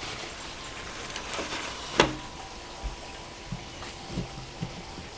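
Large knife cutting through the dry, hardened outer crust of a dry-aged ribeye on a metal sheet pan: low cutting and handling sounds, with one sharp click about two seconds in.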